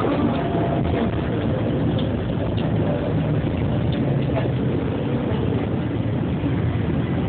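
Tram running along its rails: a steady low rumble of wheels and motor, with a few faint clicks.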